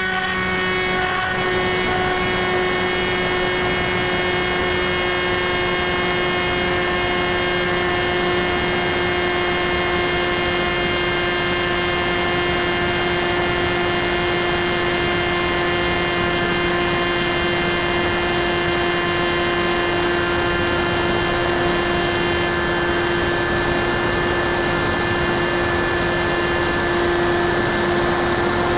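Bixler 2 RC plane's brushless electric motor and propeller running in flight, heard from the onboard camera as a loud, steady whine at nearly constant pitch.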